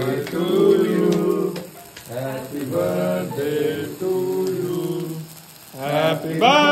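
Voices singing or chanting in long, wavering held notes with short breaks, and a loud voice rising in pitch near the end.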